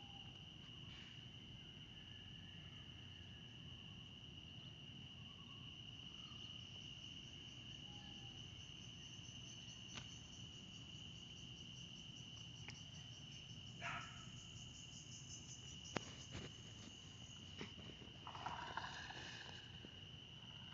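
Crickets trilling steadily and faintly, one unbroken high-pitched tone, with a few soft clicks and a brief faint sound near the end.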